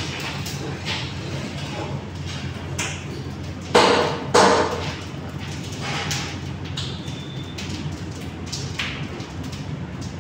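Commercial kitchen background: a steady low hum with scattered clinks and taps, and two loud knocks a little under a second apart near the middle.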